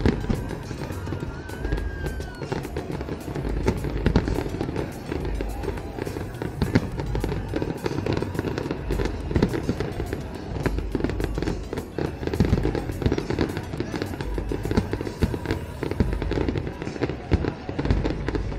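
Aerial fireworks display: shells bursting with many bangs in quick succession over a low rumble, mixed with crackling.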